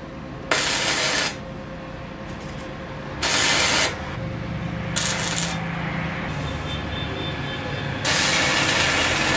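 Gasless flux-core MIG welding arc from an ESAB HandyArc Mig 200i crackling in four short bursts as tack welds are struck on steel plate. The last burst is the longest, over a second near the end.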